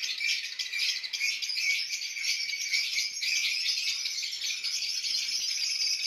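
Lovebirds chattering: a dense, continuous stream of rapid, high-pitched chirps.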